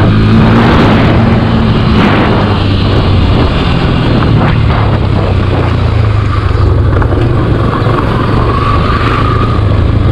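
Motorcycle engine running steadily at cruising speed, with wind rushing over the microphone while riding.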